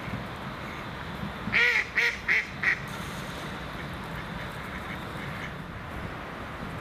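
A duck quacking: four short quacks in quick succession, starting about a second and a half in, over a steady background rumble.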